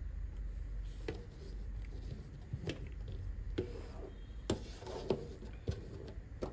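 Handling noise from test leads and a mains cable: a series of short clicks and knocks from crocodile clips and the plug, with the cable rubbing across the bench, over a steady low hum.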